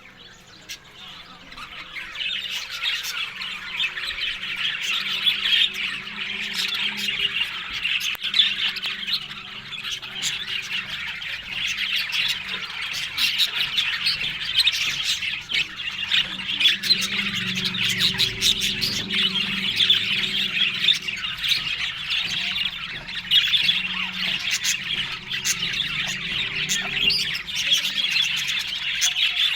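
Budgerigars chattering and squawking continuously in a dense mix of calls, picking up about two seconds in.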